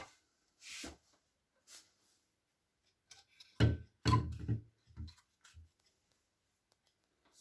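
Handling noises: brief rustles early on, then a cluster of soft knocks and thumps about halfway through.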